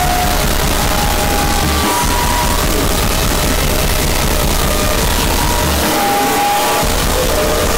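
Power-noise sound collage: a dense, loud, unbroken wall of harsh noise over a heavy low hum. The hum drops out briefly about two seconds in and again around six seconds in. Short wavering tones drift in and out above it.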